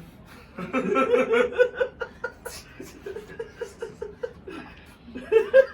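A person laughing in a long run of short, quick pulses, about five a second, with a louder burst near the end.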